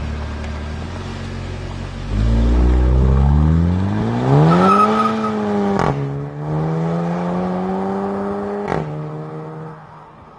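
SEAT Leon Cupra 300's turbocharged 2.0-litre four-cylinder idling, then pulling away hard with the engine note rising steeply. Two upshifts, each marked by a sharp pop, break the rise before the car fades into the distance.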